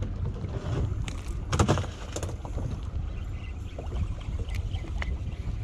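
Steady low rumble of wind and water around a small fishing boat on the open sea, with a few brief handling knocks; the strongest knock comes about a second and a half in.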